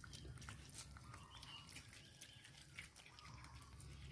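Faint clicks and smacks of a baby monkey nibbling kernels off a grilled corn cob.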